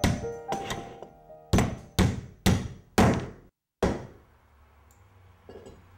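A hammer driving a nail into wooden floorboards: a series of sharp blows about two a second, the four in the middle loudest, then a single last blow after a short break. Piano music fades out under the first couple of blows.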